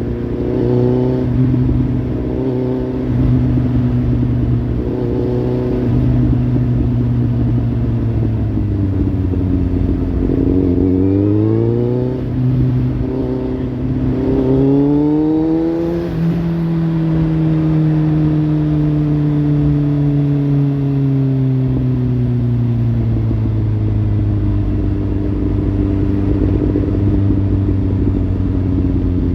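Kawasaki Z800's inline-four engine through a Lextek slip-on exhaust. It runs steadily, then climbs in pitch twice over the middle, with a brief drop between the two climbs, and falls slowly back to a steady low drone.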